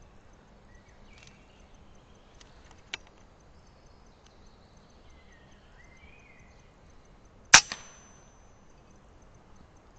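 A single air rifle shot: one sharp crack about three-quarters of the way through, with a brief high ring and a smaller knock right after it. Birds call faintly before the shot, and there is a small click a few seconds earlier.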